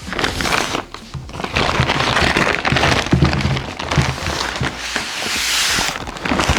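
Delivery packaging being torn open and handled: dense crackling and ripping with sharp cracks throughout, over background music.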